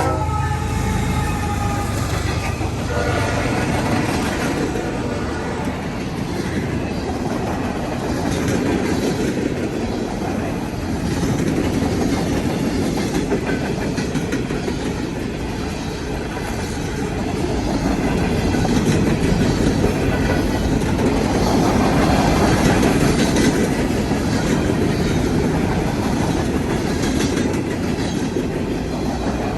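Norfolk Southern coal train passing, a long steady rumble of freight cars with rapid clicking of wheels over the rail joints. The last of a locomotive horn fades out in the first couple of seconds.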